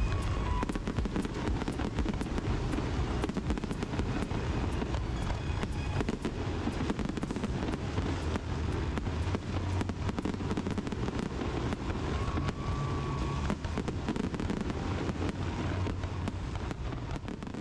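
Fireworks display: a continuous barrage of crackling pops and booming aerial shell bursts over a steady rumble, fading out near the end.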